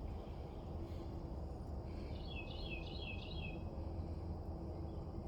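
Freightliner Classic's diesel engine idling as a steady low rumble, run to work head gasket sealer through the cooling system. About two seconds in, a bird chirps a quick run of high notes.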